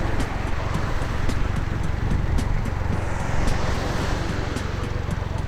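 A motor vehicle running: a steady low engine rumble with a haze of road or wind noise and a few light clicks.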